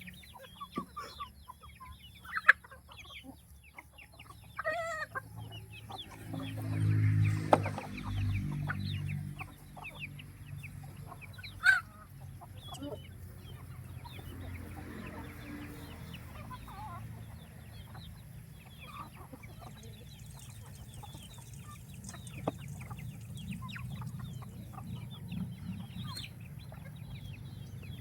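A flock of chickens clucking and calling in short, scattered notes. A low rumble runs from about six to ten seconds in, and a few sharp clicks sound, the loudest just before twelve seconds.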